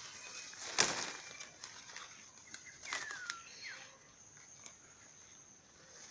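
Someone pushing through forest undergrowth, with a sharp crack about a second in and a weaker snap about three seconds in. A bird gives a short falling whistle, then a shorter one, around three seconds in. A steady high insect note runs underneath.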